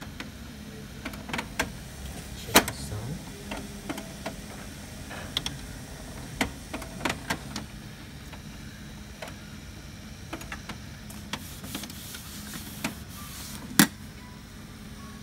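HP LaserJet M203dn laser printer running after power-on with a new toner cartridge fitted: a steady mechanical hum with scattered clicks and clacks, the sound taken as normal now that the old cartridge's noise is gone.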